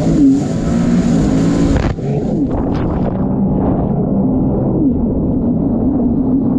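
A motor engine running, its pitch rising and falling as it is revved. A hiss sits over it for the first two seconds and stops abruptly.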